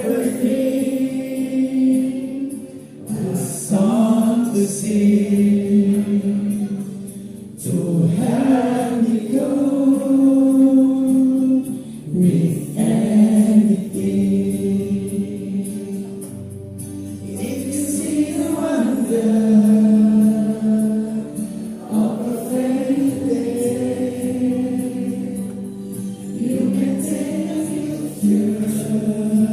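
Music with a choir of voices singing long held notes that move from pitch to pitch.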